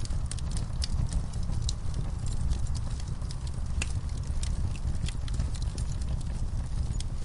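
Wood fire crackling in a fireplace: frequent sharp, irregular snaps and pops over a steady low rumble.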